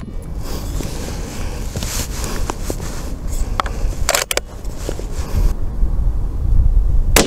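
A bolt-action rifle being loaded and fired: a few short metallic clicks as a cartridge goes in and the bolt is worked, then a single 6.5 Creedmoor Ruger Precision Rifle shot near the end, its report echoing away. A steady low rumble sits underneath.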